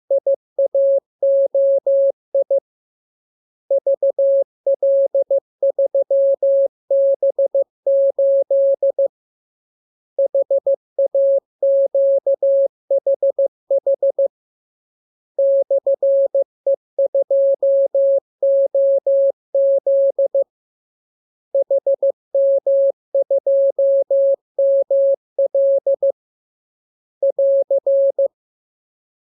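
Morse code sent as a single steady, mid-pitched tone keyed on and off in dots and dashes. It runs in groups of characters with pauses of about a second between groups, ending with a short group near the end.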